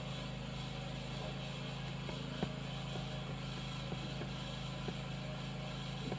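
Steady low background hum with a few faint clicks, the clearest about two and a half seconds in.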